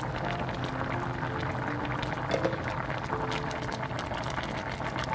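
Thick spicy chicken and potato stew (dakbokkeumtang) boiling hard in an open pot, bubbling steadily with many small pops, and one louder click about two seconds in.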